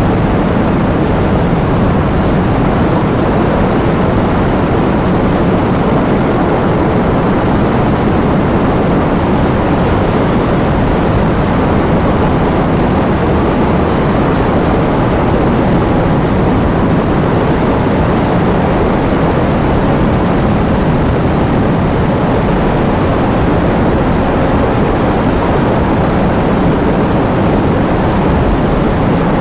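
Heavy rain falling, a steady, unbroken rush of noise weighted toward the low end.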